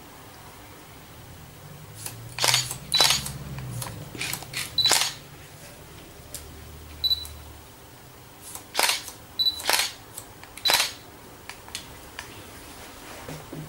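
Hairdressing scissors snipping through wet hair: a string of sharp, irregular snips, some in quick pairs, a few with a brief metallic ring.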